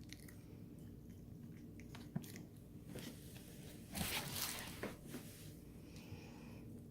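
Five-week-old puppies play-biting and mouthing each other, with scattered small clicks and a louder scuffle about four seconds in.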